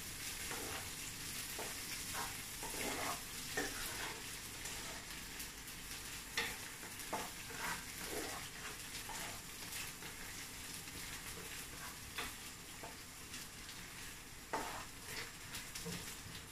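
Pounded aromatics and dried anchovies sizzling in hot oil in a granite-coated frying pan, with a spatula scraping and tapping the pan at irregular moments as it stirs.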